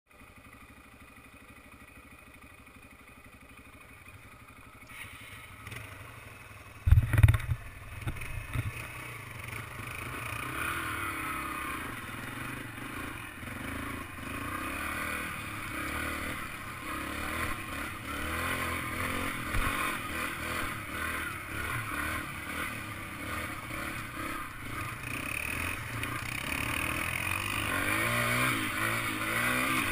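Yamaha TT-R trail bike's single-cylinder four-stroke engine riding down a gravel trail, its note rising and falling with the throttle, with gravel clatter. It is faint for the first few seconds, there are several heavy thumps about seven seconds in, and it grows louder toward the end.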